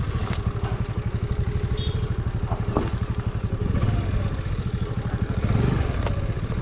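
Honda Activa scooter's single-cylinder four-stroke engine running steadily at low revs, with a brief knock about three seconds in.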